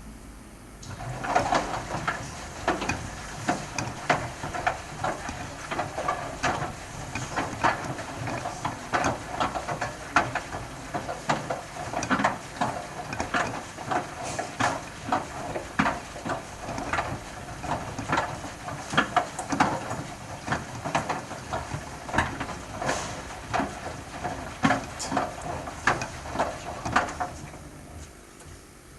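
Bosch washing machine drum turning on a wash with a pipe left inside it, the pipe knocking and clattering against the drum about twice a second. The knocking fades out near the end as the drum stops turning.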